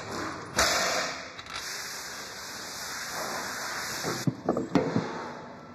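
Assembly-workshop noise: a loud hiss starts suddenly about half a second in, runs steadily and cuts off about four seconds in, then a quick run of sharp knocks near the end.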